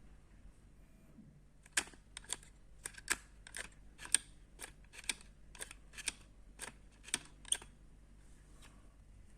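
A run of about a dozen sharp mechanical clicks, roughly two a second, then a few fainter ones near the end.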